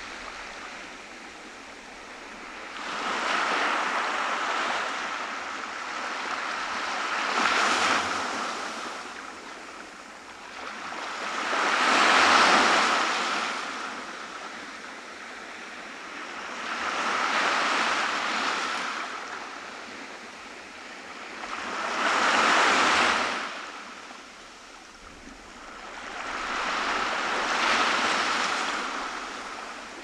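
Small waves breaking and washing up a sandy beach, the surf swelling and falling back about every five seconds.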